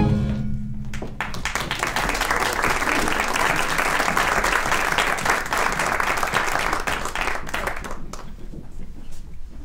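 Audience applauding at the end of a musical number. The final chord dies away in the first second, then the clapping builds, holds steady and thins out near the end.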